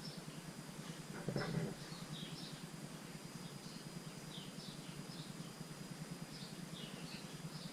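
Small birds chirping repeatedly in short high notes over a steady low hum, with a brief clatter about a second and a half in.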